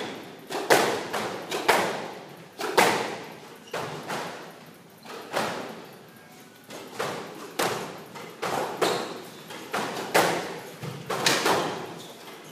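Squash rally: the rubber ball smacked by racquets and off the court walls, a quick, uneven string of sharp hits, each ringing with echo in the court.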